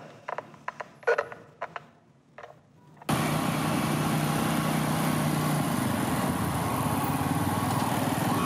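A few faint short knocks, then about three seconds in an abrupt cut to a motorcycle engine running steadily as it rides along, under a constant rushing noise.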